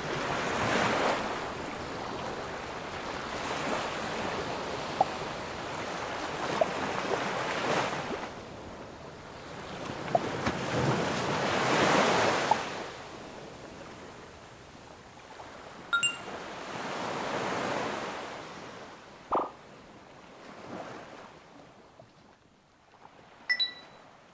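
Ocean waves washing in slow swells every few seconds, growing fainter in the second half. Short, high ringing tones come twice in the last third.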